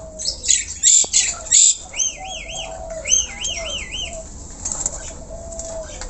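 Caged jalak sutra (jalak kapas) starling singing: a string of sharp chirps, then two runs of quick rising-and-falling whistled notes about two and three seconds in.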